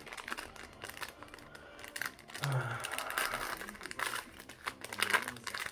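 Foil wrapper of a Pokémon booster pack crinkling and crackling as it is handled and opened, loudest in the middle.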